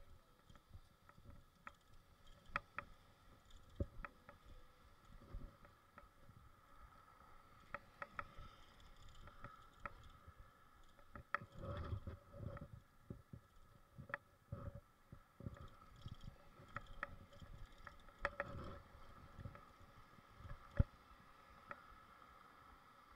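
Faint, irregular clicks and knocks with low rumbles from a bicycle and its handlebar-mounted camera jolting over the street surface.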